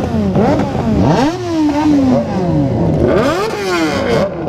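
Several motorcycle engines revving in a group, their pitch jumping up and dropping back again and again in quick throttle blips, with one longer rev about a second in that falls away slowly.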